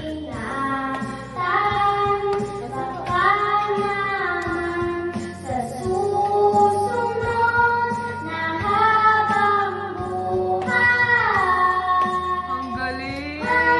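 A boy singing karaoke into a handheld microphone, his voice amplified over a recorded backing track, with sustained notes and pitch slides.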